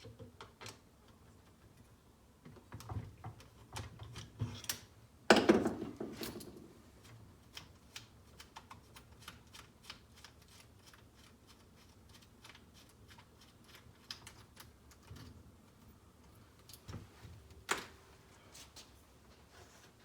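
Small hand tools and metal screws clicking and clattering as bolts are taken out of a gas RC truck's engine fan shroud. There is a louder clatter about five seconds in and a sharp knock near the end, with a run of light, quick clicks between them.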